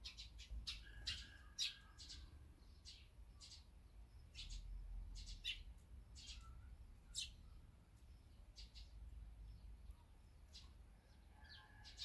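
Eurasian tree sparrows chirping at a seed feeder: short, scattered chirps, one after another, faint throughout.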